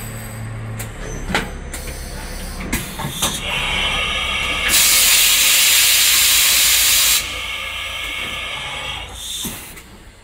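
Hurco BMC30 vertical machining center running with a low hum and a few sharp clicks. About halfway through comes a loud hiss of air that lasts about two and a half seconds, then drops back.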